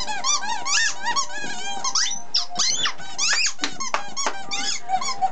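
English Springer Spaniel chewing a squeaky ball, squeezing out a rapid run of high squeaks, several a second, each rising then falling in pitch.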